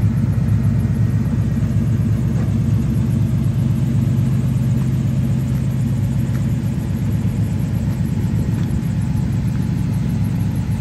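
Car engine idling with a loud, steady, rapidly pulsing exhaust rumble. A steady low hum within the rumble drops away about two-thirds of the way through.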